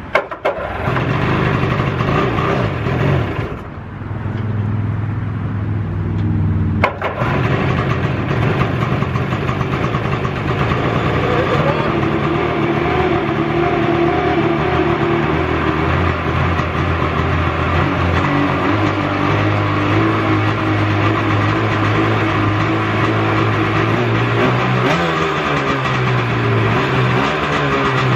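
Sea-Doo 787 two-stroke twin engine in a home-built jet boat firing up on its first start after the oil lines and carbs were primed. It runs for a few seconds, dips about three and a half seconds in, picks up again about seven seconds in, then runs steadily, with small rises and falls in pitch near the end.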